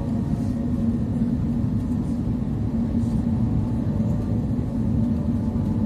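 Airliner cabin noise during descent: a steady rumble of engines and airflow with a constant low hum, heard from a window seat.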